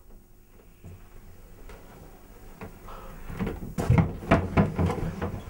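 Wooden wardrobe door being pushed open: after a quiet stretch, a quick run of knocks and bumps starts about three seconds in.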